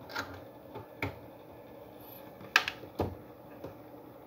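Handling noise from oscilloscope probe leads and a BNC connector being fitted at the scope's input: four sharp clicks and knocks, the loudest about two and a half seconds in.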